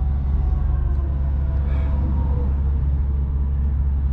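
Semi truck's diesel engine running, heard from inside the cab as a steady low drone.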